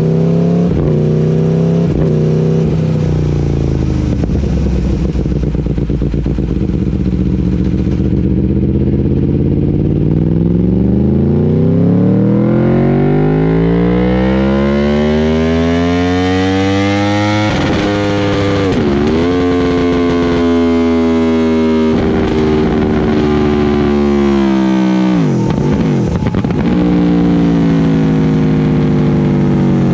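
Aprilia Tuono motorcycle engine, breathing through a Yoshimura Alpha-T exhaust, running on a dyno. A couple of quick throttle blips lead into a long pull that rises in pitch for about eight seconds. The throttle shuts sharply at the top, then the engine holds at steady revs, with another brief dip near the end.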